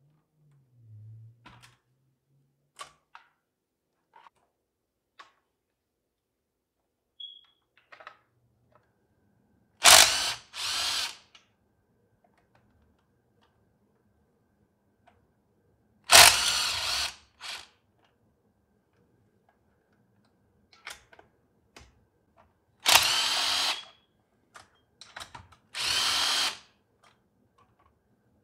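Cordless power driver with a socket spinning out the cylinder-head bolts of a Honda GX160 engine, in short runs of about a second, some in quick pairs. Light clicks and taps of bolts and parts being handled fall between the runs.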